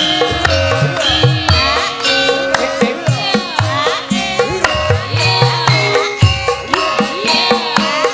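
Javanese gamelan music: bronze metallophones and gongs holding ringing tones over a steady run of kendang hand-drum strokes, some of them bending in pitch.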